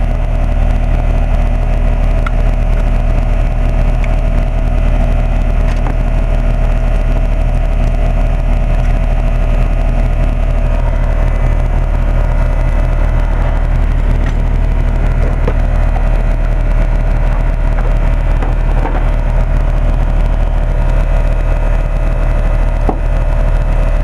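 2007 Carrier central air-conditioner condensing unit running, its compressor and condenser fan giving a loud, steady hum with a constant tone.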